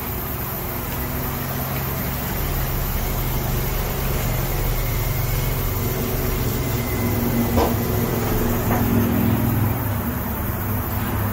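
Smart Fortwo's small three-cylinder petrol engine running as the car creeps up and stops, a steady low hum that swells a little in the middle. Two faint clicks come about two-thirds of the way through.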